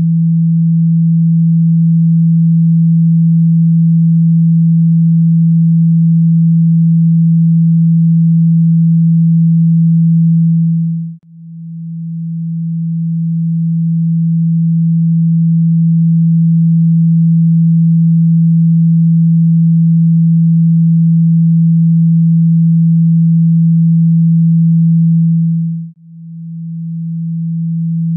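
A loud, low, pure tone of a phone speaker-cleaning sound, meant to shake liquid and dust out of a phone's speaker grille. It holds one steady pitch, cuts out briefly twice, about eleven seconds in and near the end, and swells back up after each break.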